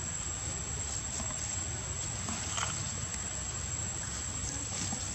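Steady, high-pitched insect drone over a low rumble, with a few faint clicks.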